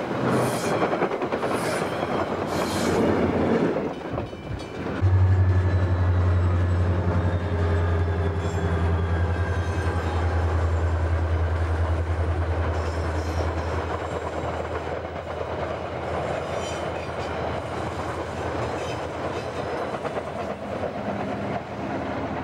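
Passenger coaches rolling by close up, their wheels clicking over rail joints in a regular rhythm a little under a second apart. About four seconds in, this gives way to a passing passenger train with a steady low engine hum that slowly fades.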